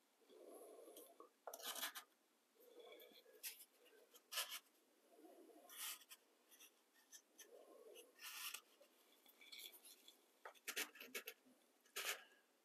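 Near silence broken by faint, short scrapes every second or two: a small square of cardboard being drawn across a concrete floor, pulling a puddle of epoxy crack filler into the crack.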